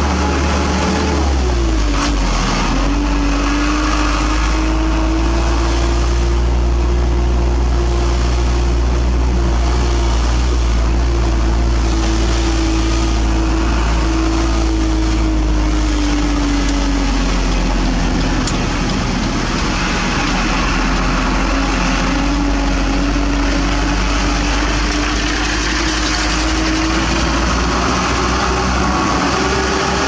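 Isuzu ELF dump truck's diesel engine running under way, heard from inside the cab with a heavy low rumble. Its pitch drops about two seconds in, sags again past the middle and rises near the end.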